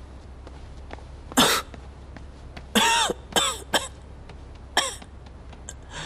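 A young man coughing hard in about five separate bursts, choking while eating.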